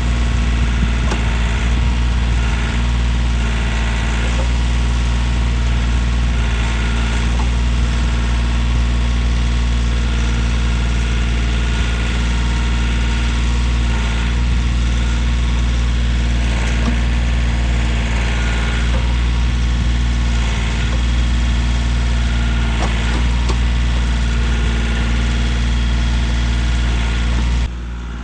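Kioti compact tractor's diesel engine running steadily, with a few faint clicks over it; the sound drops suddenly near the end.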